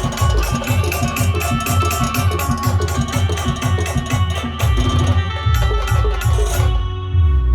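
A band playing a song, with fast, dense drumming under a steady melody. Near the end the drums stop and held notes ring on.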